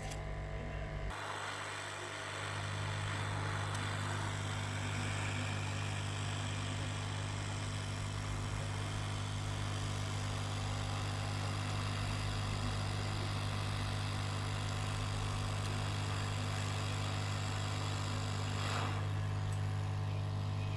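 Hot air rework station blowing steadily, a constant rushing hiss of air over a low hum, switching on about a second in, while it heats the board to desolder the backlight IC.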